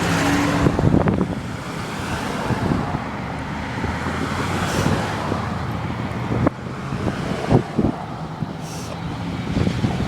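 Road traffic: cars going by with steady engine and tyre noise, with a few sharp knocks along the way.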